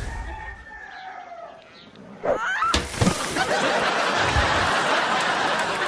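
Audience laughter breaks out about two seconds in, right after a thump, and keeps going loud and dense.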